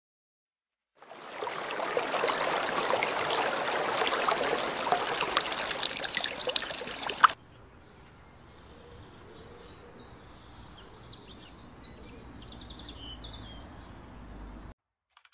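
A loud rushing noise dotted with crackles, which cuts off suddenly about seven seconds in. Birds then sing in short chirps and trills over a low steady hum.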